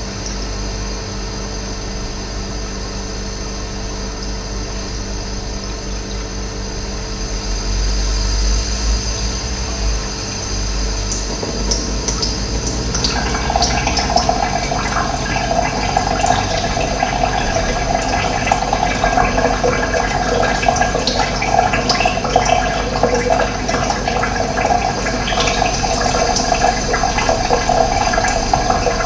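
Running water, flowing and splashing steadily, over a steady hum that drops away about eleven seconds in; the rush of water then grows louder and fuller.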